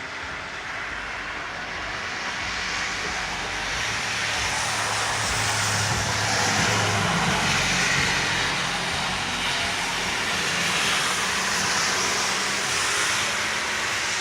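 An engine running with a broad rushing noise and a low hum, swelling to its loudest about halfway through and staying loud to the end.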